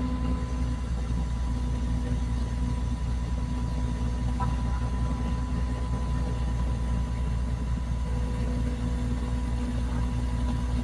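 An engine running steadily with a low, even rumble and a faint steady whine above it.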